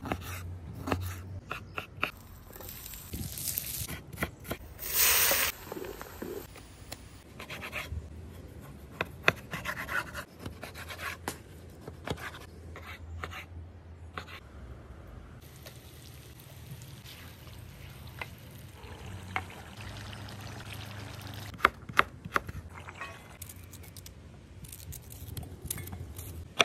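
Kitchen knife cutting food: slicing through a block, raw meat on a wooden cutting board and carrots over a metal bowl, with scattered sharp taps of the blade on the board. A louder rushing noise lasts about a second around five seconds in.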